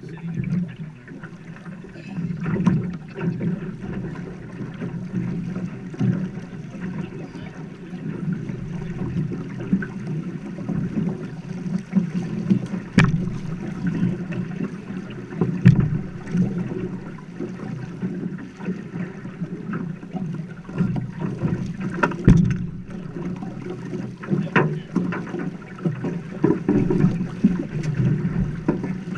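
River current rushing and splashing around a drift boat's oar blade and hull, a steady, uneven water noise with a few sharp knocks against the boat.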